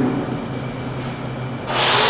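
Low steady machinery hum of the robot welding cell with a short thump at the start, then near the end a loud, steady hissing crackle starts suddenly: the MIG welding arc striking as the robot begins its weave weld.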